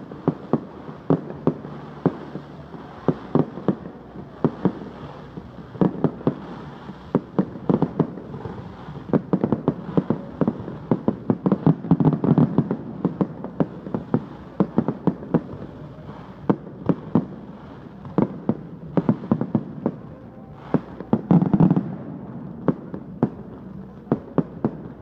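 Fireworks display: a rapid, uneven stream of sharp bangs from bursting shells, with heavier volleys about halfway through and again near the end.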